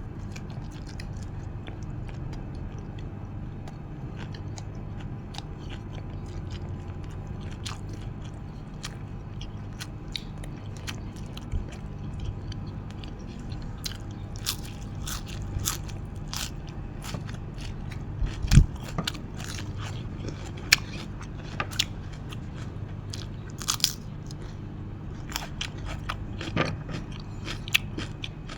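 Close-miked chewing and crunching of a mouthful of nam tok moo, the Isan grilled-pork salad, with many short crunchy clicks, over a steady low hum. A single sharp knock stands out about eighteen seconds in.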